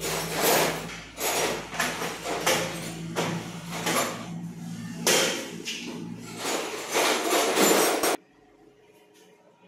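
Irregular rustling and knocking handling noise from a handheld phone camera being moved around, over a low steady hum. It cuts off suddenly near the end, leaving only a faint hum.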